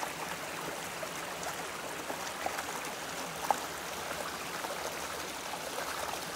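Shallow stream babbling steadily over stones, with small splashes and one louder splash about halfway through.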